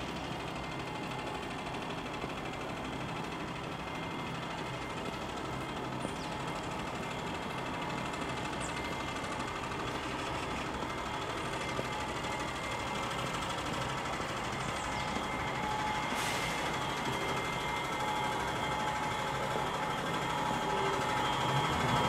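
City bus running, heard from inside the cabin: a steady engine hum with faint whining tones, growing slowly louder, and a single brief click about two-thirds of the way through.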